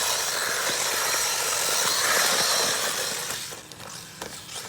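Brushless Traxxas 1/16 Slash RC truck run hard over loose dirt: a loud, rushing hiss of tyres and motor that drops away about three seconds in, with a few clicks after.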